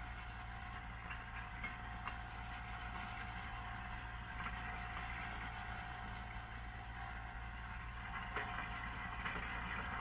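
Kitchen food waste disposer running steadily with tap water flowing into it, grinding scraped-off food scraps. A faint clink about eight seconds in.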